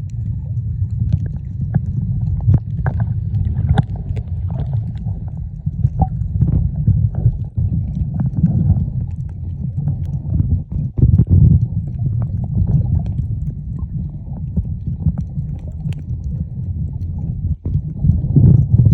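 Muffled underwater sound from a camera held under the sea: a dense low rumble of moving water with scattered small clicks and pops.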